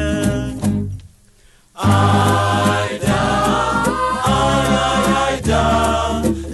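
St. Lucian folk group singing together in chorus over a bass line, with percussion ticking in time. About a second in, the music stops dead for nearly a second, then the voices and bass come back in.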